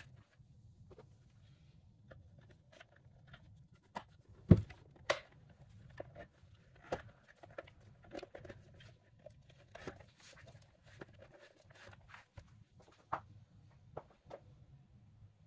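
Scattered plastic clicks and knocks from a car navigation screen unit's plastic housing being handled, turned over and pressed together, with a sharp knock about four and a half seconds in and another just after. A faint steady low hum runs underneath.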